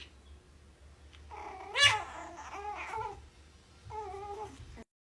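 A cat meowing three times, the first call the loudest.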